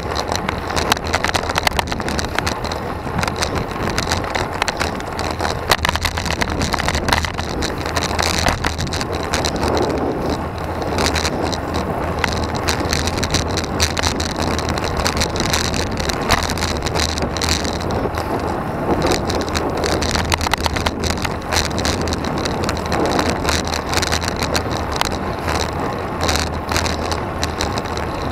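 Road bike ridden uphill, heard from its own handlebars: a steady rush of wind and tyre noise on asphalt, broken by frequent short clicks and rattles.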